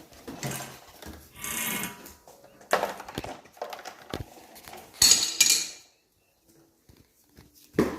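Irregular clatters, knocks and rustles of a toy cleaning trolley and its pieces being handled, the loudest clatter about five seconds in.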